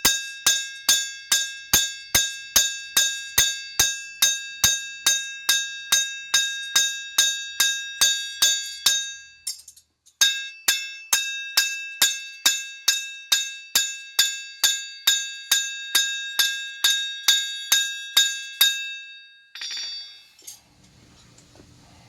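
Hand hammer striking a bar of cold steel on an anvil, a steady run of blows about three a second, each ringing with a high, bell-like tone. The hammering pauses briefly about halfway and stops a few seconds before the end, followed by a short metallic clatter and then a faint low hum.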